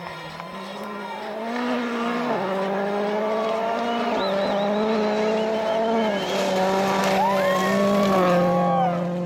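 Ford Fiesta RS WRC rally car's turbocharged four-cylinder engine at high revs, coming past on gravel. It grows louder over the first two seconds, then holds a steady high note that steps in pitch a few times.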